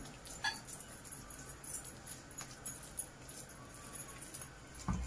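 Faint handling sounds with a few light clicks as hands shape a soft minced-meat mixture into a ball.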